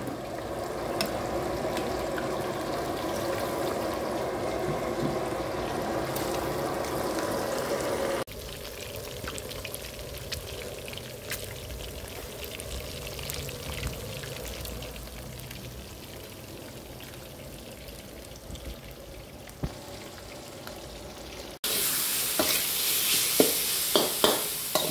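Marinated chicken pieces deep-frying in a pot of hot oil, bubbling steadily. In the last few seconds, minced pork sizzles more loudly in a wok as a metal spatula scrapes and stirs it.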